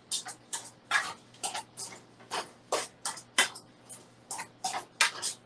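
Large metal spoon mashing boiled potatoes in a metal pot: an irregular run of short scraping strokes, two or three a second.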